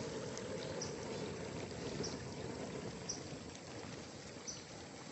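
Pot of water boiling over a wood fire: a steady bubbling hiss that gradually fades. A short high chirp repeats about once a second.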